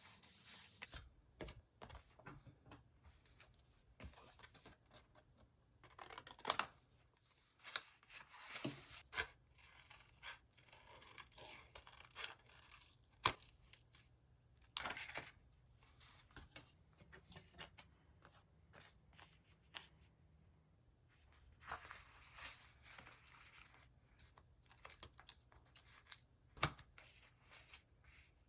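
Paper and stickers being worked by hand for diary decorating: short tearing and rustling sounds at irregular intervals, with scattered light taps and clicks between them.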